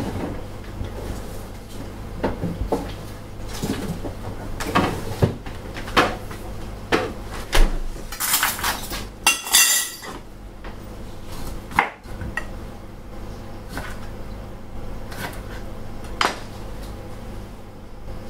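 Kitchen clatter: dishes, bowls and utensils clinking and knocking on a counter, with knife strokes on a cutting board as a lime is sliced. A short hissing rustle comes near the middle, over a low steady hum.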